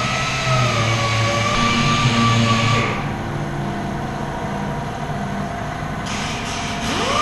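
A machine running with a steady whine over a low pulsing hum; about three seconds in the upper hiss drops away, and near the end the whine rises in pitch and settles again.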